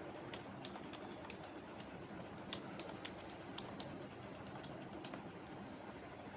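Sparse, irregular keystrokes on a computer keyboard over a steady background hiss.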